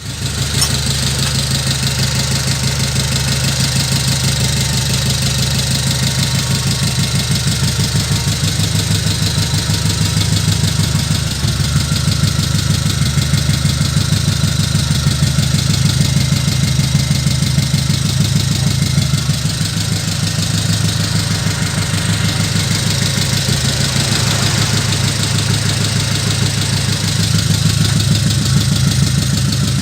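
Engine idling sound, running steadily with a fast, even pulse and only small changes in level; it starts abruptly.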